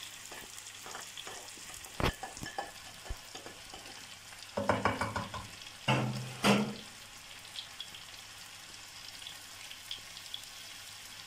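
Chicken and freshly added grated courgette sizzling in a frying pan, with a spatula knocking and scraping against the pan as it is stirred; the loudest scrapes come about halfway through.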